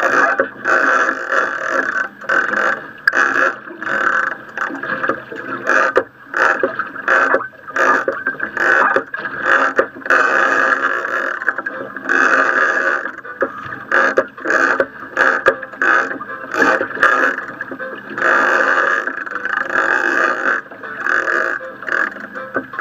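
Choppy, muffled noise of a small fishing boat at sea, pulsing unevenly a few times a second, while a big-game reel is cranked in against a large yellowfin tuna.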